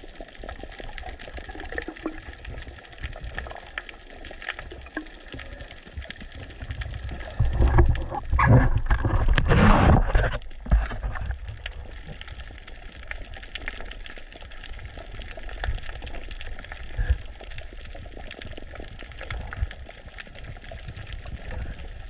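Underwater sound picked up by a submerged camera: a steady muffled water rumble, with a loud gurgling rush of bubbles from about eight to ten seconds in.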